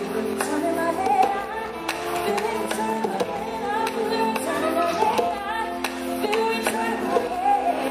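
Live music: a female voice sings wordless melodic runs over a band's sustained instrumental accompaniment.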